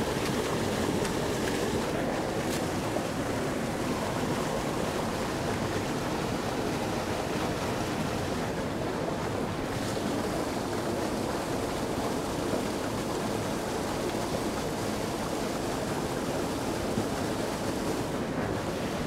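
Steady rushing of water pouring out of a dam spillway's outflow pipe and churning over rocks into the pool below.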